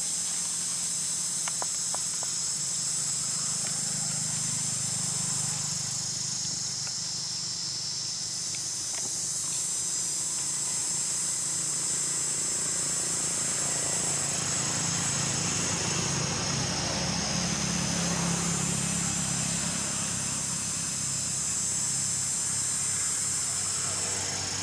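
Steady high-pitched insect chorus, with a low hum underneath that swells and fades in the middle.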